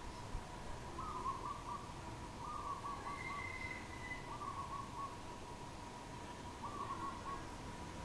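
Dove cooing: a short phrase of several quick coos, given four times about two seconds apart.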